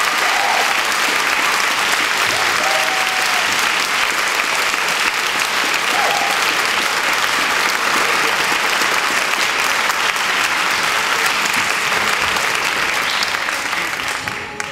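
Theatre audience applauding steadily, dying down near the end.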